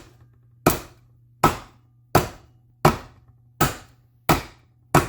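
Small body hammer tapping a dent out of a thin metal car trim piece backed by a body dolly. Seven even, sharp metallic taps, about one and a half a second, each ringing briefly.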